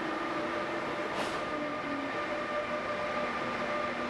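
ÖBB Class 1116 Taurus electric locomotives pulling away with their train, giving a steady electric whine in several tones whose lower notes step in pitch, over the rumble of the coaches rolling past. A short hiss about a second in.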